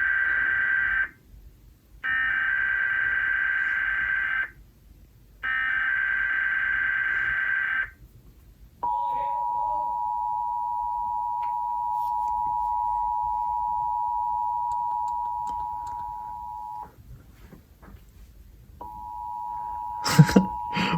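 Emergency Alert System test signal: the warbling digital header tones (SAME data bursts), the end of one burst and then two more, each about two and a half seconds with short gaps. They are followed by the steady two-tone EAS attention signal, held for about eight seconds. After a two-second pause the attention tone starts again near the end, with a voice cutting in over it.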